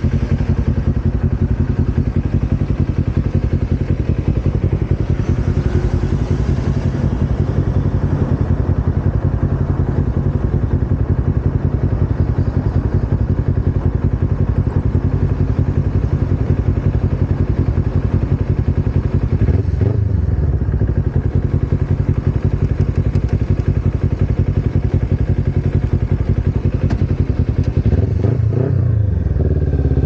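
Kawasaki Ninja 250R's parallel-twin engine idling with a steady pulsing exhaust note while the bike is stopped. The revs briefly shift about twenty seconds in and again near the end.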